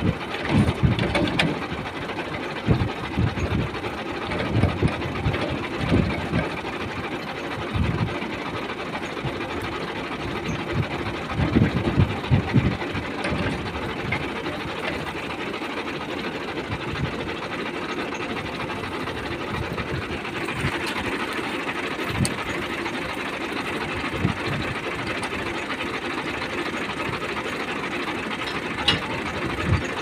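Irregular metal clanks and knocks as a tractor's PTO drive shaft is worked by hand onto the splined input shaft of a wheat thresher, over an engine running steadily.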